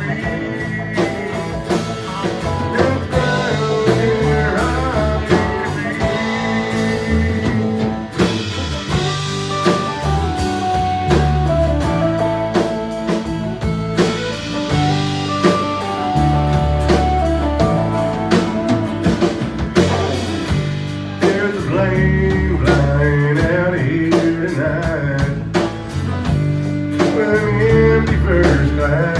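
Live country band playing a song: fiddle, acoustic and electric guitars and drums, with singing.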